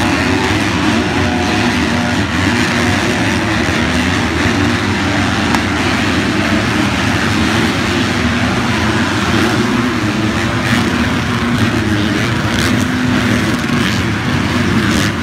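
A pack of motocross bikes racing on a dirt track, many engines running hard at once in a loud, steady mass of overlapping engine notes.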